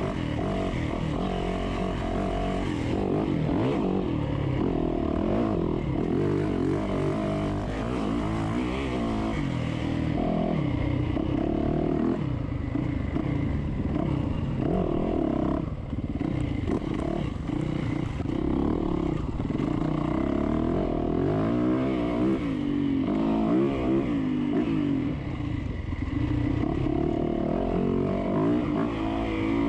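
Dirt bike engine revving up and down over and over as the rider works the throttle and shifts.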